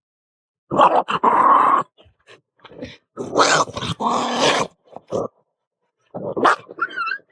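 A puppy growling in a string of short outbursts, the longest about a second in and again about three and a half seconds in.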